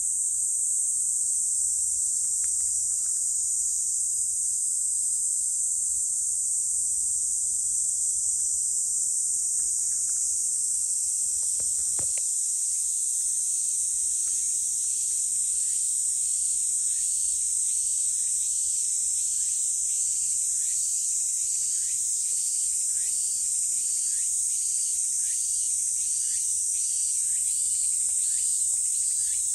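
Cicadas singing in a steady, high-pitched drone. From about halfway in, a second rhythmic cicada call joins with short pulses repeating about once a second.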